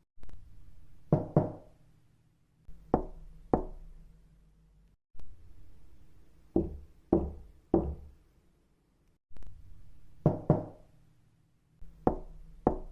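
Knuckles knocking on a door in short groups of two or three knocks, each knock sharp with a brief ring in the room.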